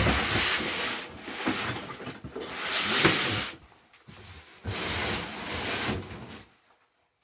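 Wood being worked with an abrasive or cutting edge: three long, rough scraping passes with quieter scraping between them, stopping about six and a half seconds in.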